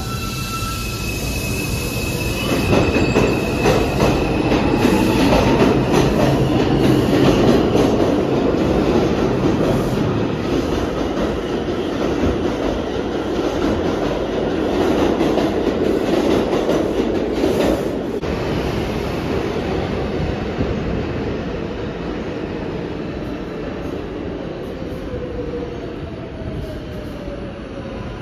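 New York City Subway 5 train of R142-type cars pulling out of the station, loudest from about three to eighteen seconds in, with rapid wheel clicks over the rail joints. It then fades, and near the end a motor whine falls in pitch as a train slows to a stop.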